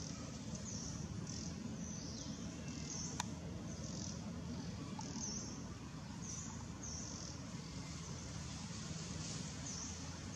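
Forest ambience: short high-pitched chirps, insect-like, repeating about once or twice a second over a steady low rumble, with one sharp click about three seconds in.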